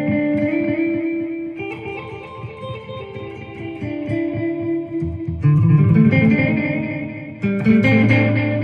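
Electric guitar, a Gibson Les Paul through a Marshall amp, played through an Electro-Harmonix #1 Echo digital delay pedal with the delay time turned up, so the notes repeat as echoes. Louder strummed chords come in about halfway through and again near the end.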